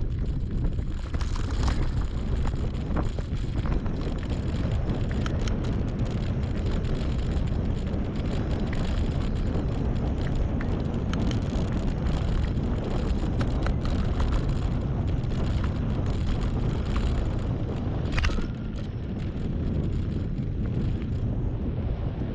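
Wind buffeting the microphone of a handlebar-mounted action camera on a bicycle riding fast over a rough dirt track, with scattered clicks and rattles from the bike and tyres on the uneven ground. Just after a sharp knock near the end, the rattling thins out and the noise drops a little.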